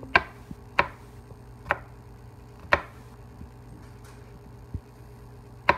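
Chef's knife slicing garlic cloves and tapping down on a plastic cutting board: about six sharp single knocks, slow and unevenly spaced, roughly a second apart with one longer gap.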